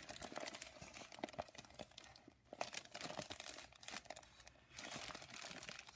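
Faint, irregular crinkling and crackling of a clear plastic sheet of small plastic glitter bags being handled and turned in the hands.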